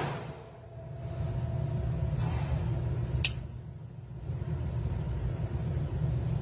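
Echo of a pistol shot from a Glock 26 dying away at the start, then a steady low rumble with one sharp high click about three seconds in.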